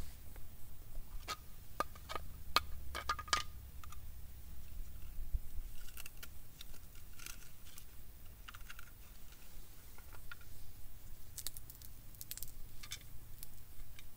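Small clicks and taps from hands handling a small tin and fire-lighting tinder of dried cramp ball fungus and pine resin. The clicks come in two quick clusters, one early and one near the end, with a few softer ticks between, over a low steady rumble.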